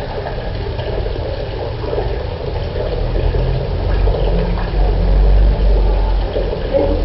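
Water running from a tap into a bucket, a steady splashing with a low rumble that gets louder about halfway through.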